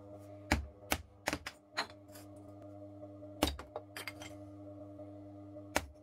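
Sharp clicks and knocks at uneven intervals, several in quick succession, over a steady low hum.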